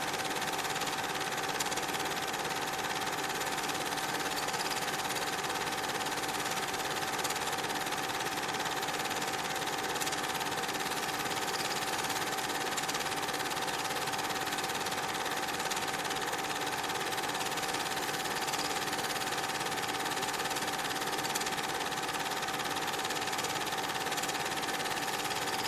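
Cine film projector running: a steady mechanical whirr with a constant high hum, unchanged throughout.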